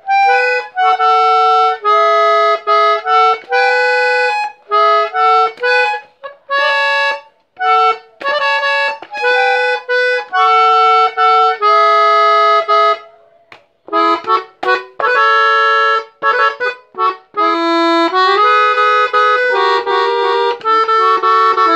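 Rossetti diatonic button accordion playing a melody on the treble buttons: short held notes and chords in phrases with brief breaks, and a short pause about two-thirds of the way through.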